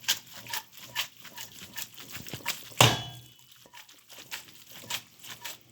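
Fresh tagliolini being stirred in a pan of truffle butter cream: a run of light clicks and clinks of a utensil against the pan, with one louder knock about three seconds in.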